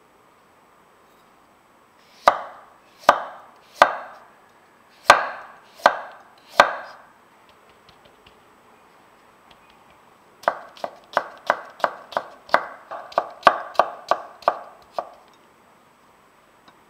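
Kitchen knife cutting carrot against a wooden cutting board: six separate slicing strokes, then after a pause a quicker run of about fifteen chops, around three a second, cutting the stacked slices into thin matchsticks.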